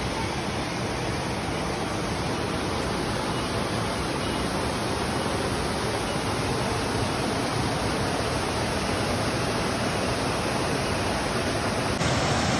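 Rushing river water, a steady even roar of flowing water over rocks, stepping up slightly louder near the end.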